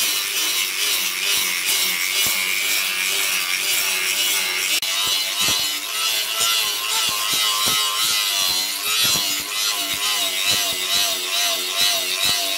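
Electric angle grinder with a sanding disc grinding a steel axe head: a steady rasping hiss over the motor's whine, whose pitch wavers up and down as the disc is pressed onto the steel, with scattered clicks throughout.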